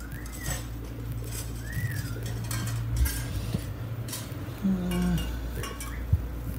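Background household clatter: scattered clinks and knocks like dishes and cutlery being handled, over a steady low hum, with two short rising-and-falling chirps near the start.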